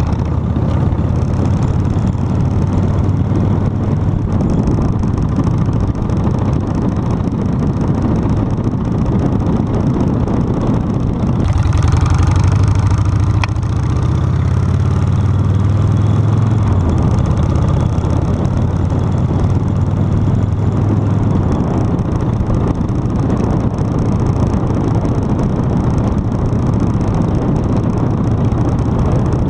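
A 1999 Harley-Davidson Sportster 1200C's air-cooled Evolution V-twin running under way, mixed with wind noise on the bike-mounted microphone. The engine's low note grows stronger for about ten seconds in the middle.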